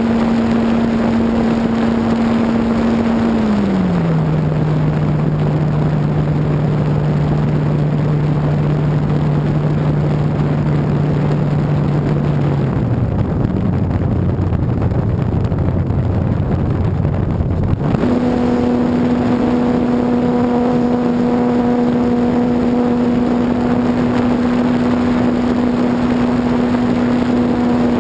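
Electric motor and propeller of an E-flite Apprentice RC plane, heard from a camera on board: a steady whine with wind rushing over the microphone. The pitch steps down a few seconds in and drops lower again about halfway as the throttle is eased back, then jumps back up to a higher pitch about two-thirds of the way through as the throttle is opened again.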